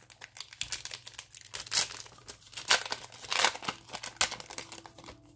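Foil booster-pack wrapper crinkling in the hands as the trading-card pack is opened and the cards are worked out, in irregular sharp crackles.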